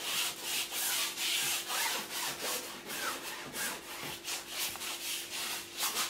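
Paint brush scrubbing wet white oil paint across a stretched canvas, a rasping rub in quick repeated back-and-forth strokes.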